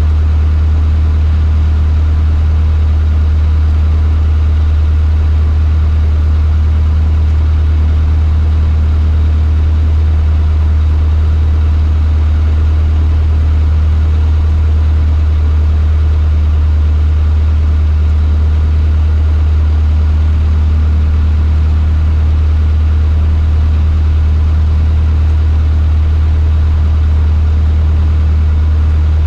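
Cessna 152's four-cylinder Lycoming O-235 engine and propeller running at a constant speed: a loud, unchanging drone with a strong low hum.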